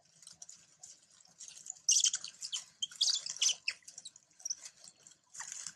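Dry leaf litter crackling and rustling as monkeys shift and move on it, loudest in the middle, with a few short high chirps.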